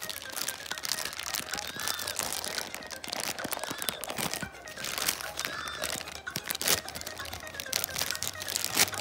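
Thin clear plastic toy bag crinkling and rustling as hands work it open, with many small crackles throughout.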